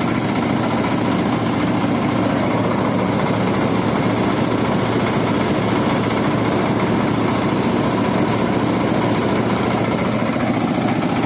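Waste-sorting separator machine running steadily: a continuous, even mechanical hum with no change in speed.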